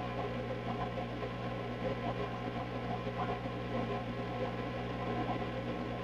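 Steady low hum with a faint, indistinct background murmur. The snake swallowing the lizard makes no sound that stands out.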